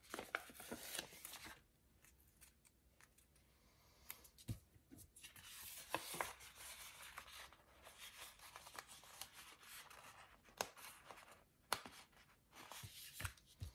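Quiet rustling and crinkling of paper planner pages and sticker sheets being handled, with scattered small clicks and taps.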